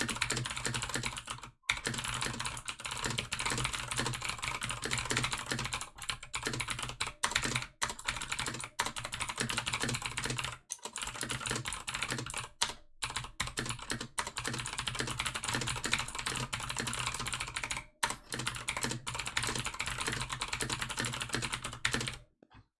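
Fast, continuous typing on a Razer BlackWidow V3 TKL mechanical keyboard with clicky Razer Green switches, a dense stream of key clicks broken by a few short pauses and stopping just before the end.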